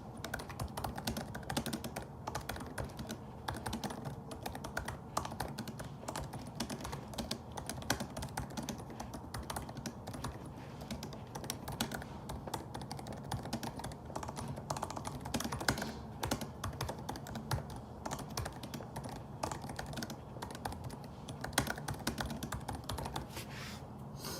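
Continuous fast typing on a laptop keyboard: a dense, irregular stream of key clicks.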